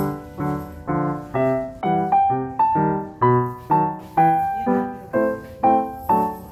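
Background piano music: a steady run of struck notes and chords, about two a second.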